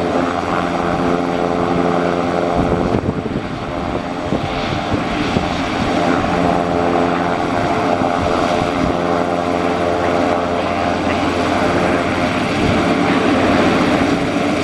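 Pilatus PC-12's single PT6A turboprop engine running on the ground, a steady propeller drone. Its tone wavers and breaks up about three seconds in, then settles again a few seconds later.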